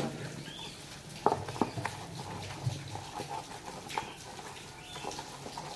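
Dishes being hand-washed in a stainless steel sink: plastic food boxes and plates knocking lightly against each other and the sink, a handful of short clatters.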